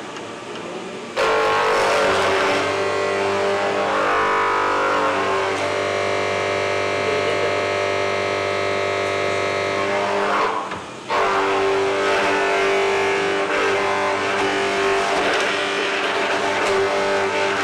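Horizontal boring machine running, its bit drilling into the edge of a wooden board. The motor's hum cuts in sharply about a second in, drops briefly at around ten seconds, then starts again just as sharply.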